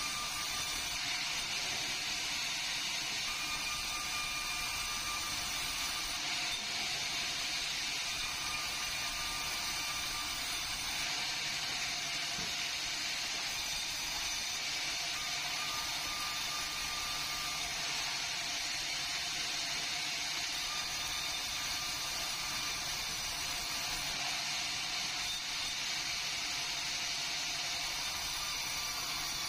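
Vertical band sawmill running and cutting meranti timber: a steady hiss of the blade through the wood, with a faint thin whine that comes and goes every few seconds.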